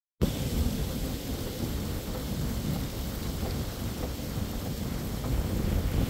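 Sea wind buffeting the microphone in low, uneven rumbling gusts, over a steady wash of surf breaking on the beach.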